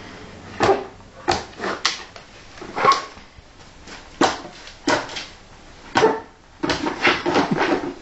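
Alaskan malamute making a string of short yips and whines, one about every half second to a second, with a denser run of whining near the end.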